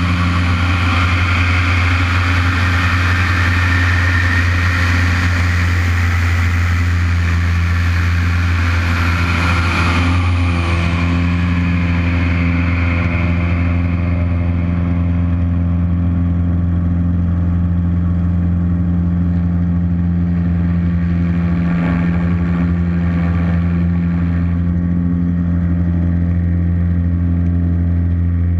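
Lycoming piston engine and propeller of an aerobatic monoplane running steadily in flight, a deep even drone. Rushing airflow is strong over the first ten seconds or so and then eases off.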